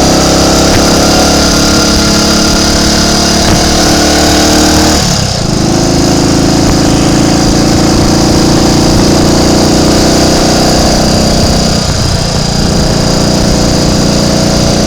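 Triumph Tiger Cub's small single-cylinder four-stroke engine pulling on the road, heard from on board. The engine note rises for about five seconds, dips briefly, picks up again and dips once more near the end. The bike has a misfire that the rider suspects comes from dirt or water in the carburettor's main jet.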